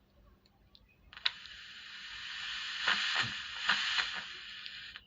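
Loudspeaker hiss with a few crackles from a 4440 IC amplifier board switched to AUX mode with no input. It starts about a second in, swells and fades, and cuts off just before the end.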